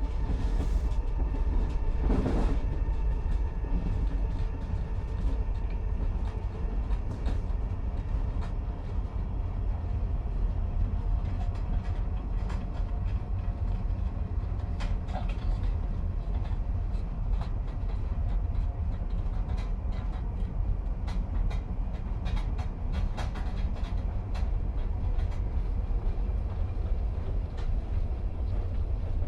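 Commuter train running, heard from inside the carriage: a steady low rumble with scattered sharp clicks and rattles, and a brief louder rush about two seconds in.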